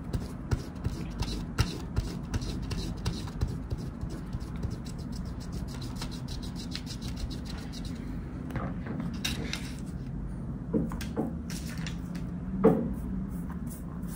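Eraser rubbing pastel off ordinary sketchbook paper in quick, scratchy back-and-forth strokes, wearing into the paper's surface. After about eight seconds the strokes thin out, and a louder thump comes near the end.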